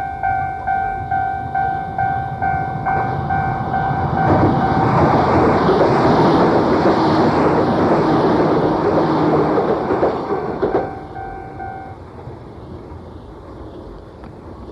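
Japanese level-crossing warning bell ringing at about three strikes a second. A Keio Inokashira Line train passes over the crossing from about four seconds in, its rumble swamping the bell. The train sound ends suddenly near eleven seconds, and the bell stops about a second later.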